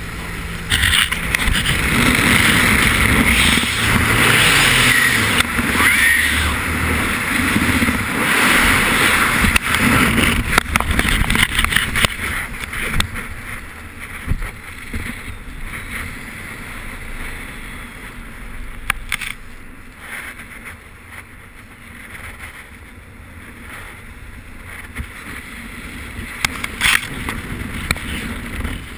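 Air rushing over a skydiver's camera microphone in freefall, loud and steady for about the first twelve seconds, then dropping to a softer rush with scattered flaps and knocks.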